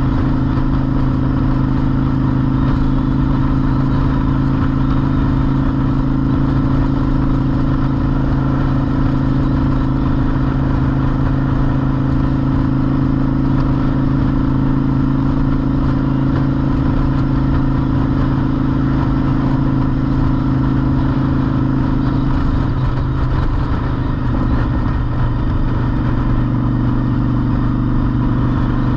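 A Honda Shadow motorcycle's V-twin engine running steadily at cruising speed, heard from the rider's seat with wind rumble. About 23 seconds in, the engine note wavers briefly, then settles again.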